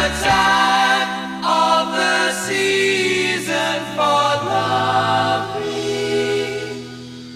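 Background music: layered vocal harmonies holding long chords, fading out near the end.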